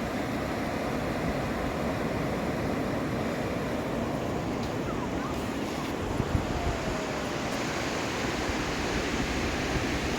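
Steady rush of wind buffeting the microphone over the wash of ocean surf.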